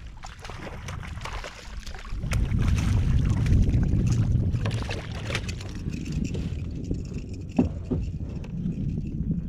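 Hooked fish thrashing and splashing at the surface right beside a kayak, with low wind rumble on the microphone; a couple of sharp knocks near the end.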